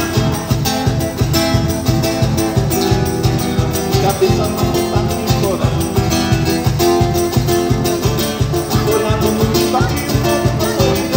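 Live band music: an electric guitar over a fast, steady beat.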